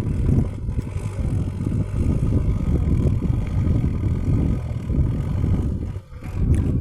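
JCB backhoe loader's diesel engine running under work, a heavy low rumble that dips briefly near the end.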